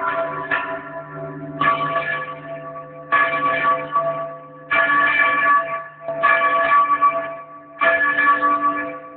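Church bell rung by hand from a rope pulled down to swing its clapper, in a Mexican repique. It sounds a strike about every one and a half seconds, six in all, each ringing on with several steady tones, over a lower hum that fades out after the first few strikes.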